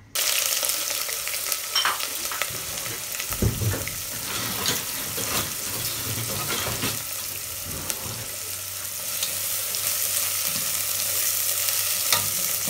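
Sliced red onions sizzling steadily in hot oil in a nonstick pot, with a spatula scraping and knocking against the pot now and then as they are stirred.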